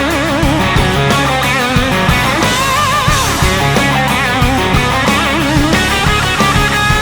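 Country-rock song in an instrumental break: an electric guitar plays a lead line with wavering, bent notes over a steady drum beat.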